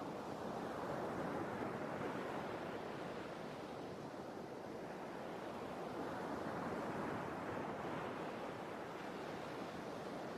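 Sea waves breaking and washing in, a steady rush of surf that swells twice, about a second in and again past the middle.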